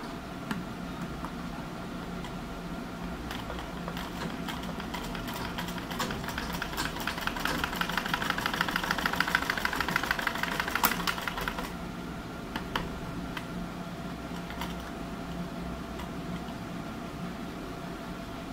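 Domestic straight-stitch sewing machine stitching fabric: a fast, even clatter of the needle mechanism starts about three seconds in, grows louder, and stops about twelve seconds in. A few single clicks follow.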